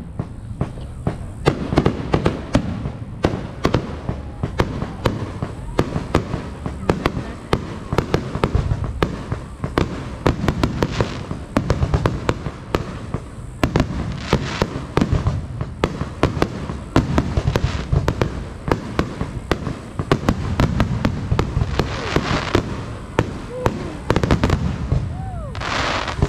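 Aerial fireworks shells bursting in a dense, continuous barrage of bangs and pops, with two spells of dense crackling near the end.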